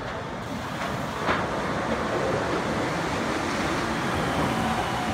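Mitsubishi rubber-tyred automated people mover train passing close by on its elevated concrete guideway: a rushing hiss of tyres and running gear that grows louder about a second in. A faint high whine runs underneath and starts to fall in pitch near the end.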